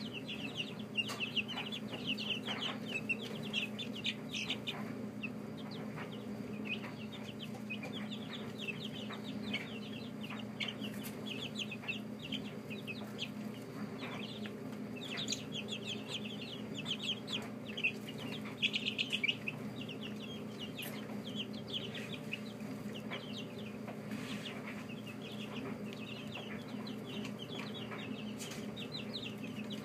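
A brood of young chicks peeping constantly in quick runs of short high chirps, thickest about halfway through, over a steady low hum.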